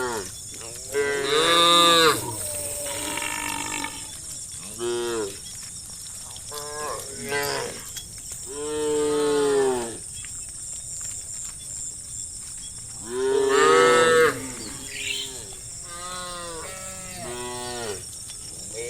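A herd of cows mooing: many separate moos of different pitches, some overlapping, with the loudest about a second in, near the middle and about three-quarters through. A steady high-pitched hiss runs underneath.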